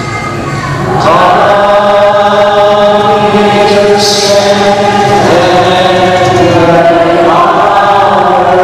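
Voices singing a slow devotional chant together, in long held notes that glide to a new pitch every few seconds.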